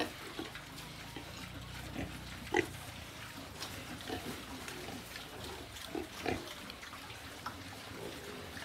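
A group of pigs feeding at a trough on vegetables, with short grunts and eating noises every second or two.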